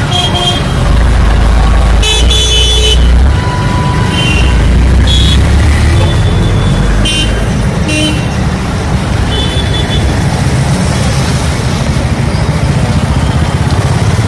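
Street noise with a loud, steady low rumble and vehicle horns tooting briefly several times, mostly in the first half.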